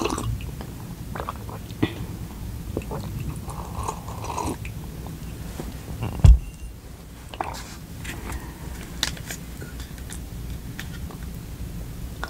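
Close-miked mouth sounds of drinking and eating: sipping and swallowing from a glass mug, then wet mouth clicks and the smacking of a spoonful of yogurt, over a low steady hum. A single loud low thump sounds about halfway through.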